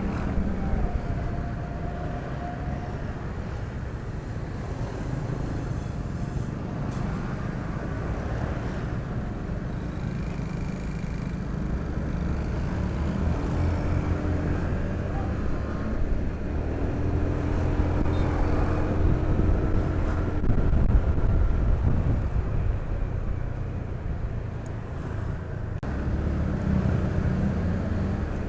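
Motorcycle engine running on the move along a road, a continuous low rumble with engine tones that rise and fall, mixed with the noise of surrounding traffic.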